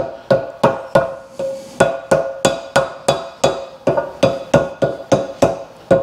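Rubber mallet tapping a cast-iron milling machine riser block about three times a second, each blow ringing with a clear metallic tone, with a short pause about a second in. The riser is being knocked down onto the mill column's raised lip, which is a hair too tight for it to seat.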